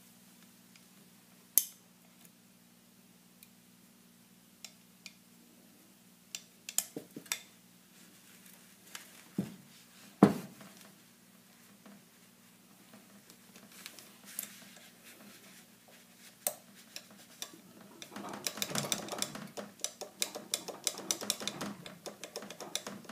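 Small metallic clicks and taps of a Smith & Wesson Model 500 revolver's hammer and lockwork being worked out of the frame by hand. The clicks come singly and sparsely at first, then in a dense run near the end.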